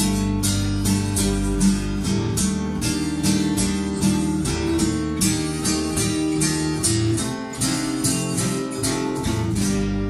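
Acoustic guitar and electric bass playing an instrumental passage live. The guitar is played in quick, evenly spaced strokes, about three or four a second, over sustained bass notes.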